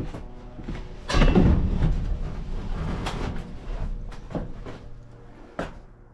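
Wooden shelf-frame boards knocking and scraping as they are handled inside a steel shipping container: a loud clatter about a second in, then scattered knocks.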